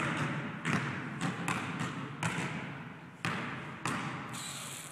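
A basketball being dribbled: a string of sharp bounces off a hard court, about every half second.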